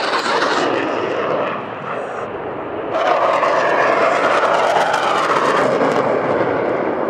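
Jet noise from a Panavia Tornado GR4's twin RB199 turbofans during a display pass. About three seconds in the sound turns abruptly louder and harsher, with the afterburners lit as the jet pulls up.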